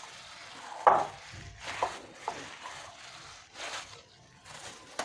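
A hand kneading raw beef mince with fried onions in a bowl: irregular squishing and rubbing, with a sharp knock about a second in.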